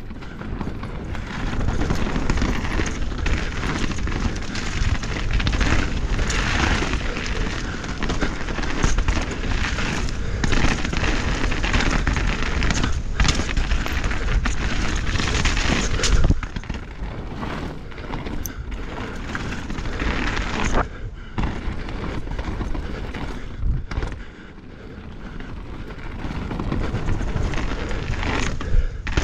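Full-suspension mountain bike (Norco Fluid on Maxxis Assegai tyres) riding fast down a dirt singletrack: tyres rolling and crunching over dirt and stones, wind buffeting the microphone, and frequent sharp knocks and rattles as the bike hits bumps. It eases off briefly about three quarters of the way through.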